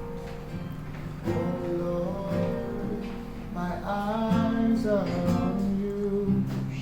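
Acoustic guitar played with a singing voice, a song performed live; the voice is clearest in the middle.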